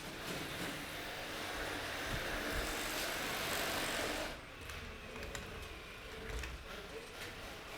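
Handheld electric saw cutting wood, a steady buzzing noise that stops about four seconds in, followed by lighter clicks and knocks.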